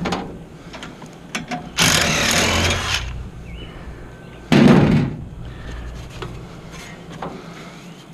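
Metal parts of a heat pump being worked loose: a harsh scrape lasting about a second, a heavy clunk a couple of seconds later, and scattered small knocks.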